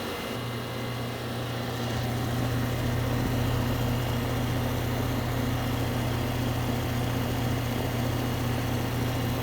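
Old Goodman air-conditioner condensing unit running with a steady compressor hum, while it is topped up with R22 refrigerant after being found low on charge. It gets slightly louder about two seconds in.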